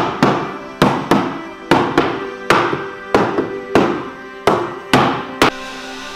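White-headed mallet knocking on a solid-wood cabinet top, seating the top on its joints during assembly: about a dozen sharp blows, many in quick pairs, over background music.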